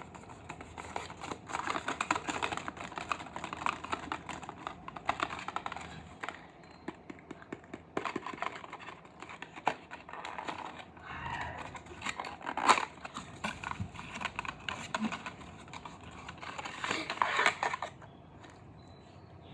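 Packaging being handled and opened: irregular crinkling, rustling and tearing with small clicks, one sharper snap about thirteen seconds in, going quiet for the last second or so.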